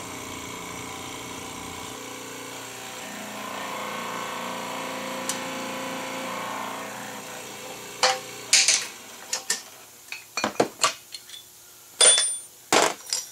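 Hydraulic shop press running as it pushes the old bearing out of a Chevy six water pump housing: a steady mechanical hum for about eight seconds. Then a run of sharp metal knocks and clinks as the pressed-out bearing, shaft and housing are handled.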